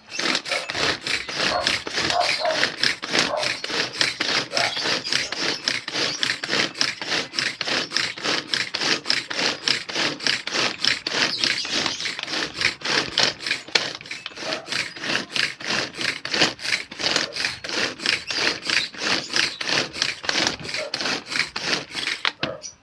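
Vegetables being prepared by hand with rapid, steady scraping strokes, about three a second, that stop shortly before the end.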